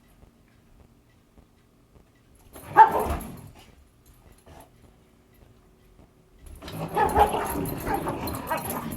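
Dog noises during a rope tug-of-war game: one short, loud bark about three seconds in, then continuous play growling and whining from about six and a half seconds on.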